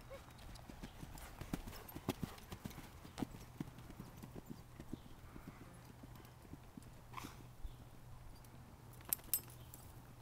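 Hoofbeats of a ridden horse moving over sand arena footing: a faint, irregular run of soft thuds, with two sharper clicks near the end.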